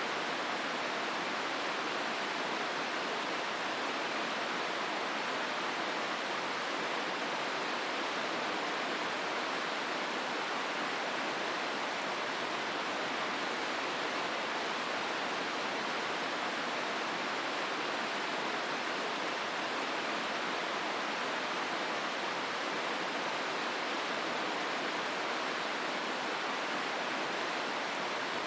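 The Hozu River's water rushing in a steady, unchanging wash of sound.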